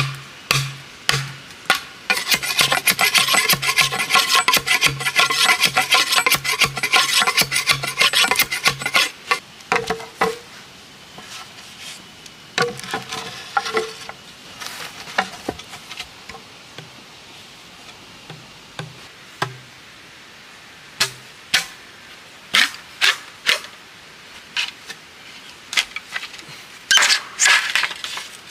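Machete blade scraping rapidly along a green bamboo pole in a dense run of strokes for several seconds, then scattered sharp knocks and chops on hollow bamboo, some ringing briefly.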